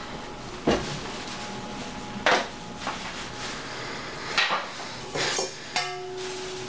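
Kitchen utensils and dishes knocking and clinking, with about five separate sharp knocks. One knock near the end is followed by a short ringing tone.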